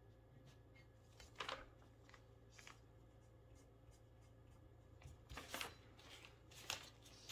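Near silence, broken by four faint, brief rustles of paper as a painted glass bottle is turned and laid down on a paper sheet.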